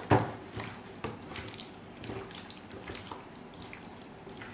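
Hands squishing and kneading boneless chicken pieces in a wet egg-and-flour marinade in a bowl: irregular wet squelches, with one louder thump just after the start.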